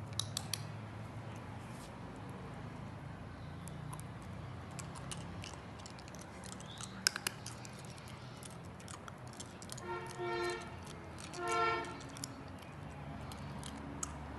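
German Shepherd puppy licking and chewing a lollipop: scattered sharp clicks and smacks. Two short whines come about ten seconds in, the second louder.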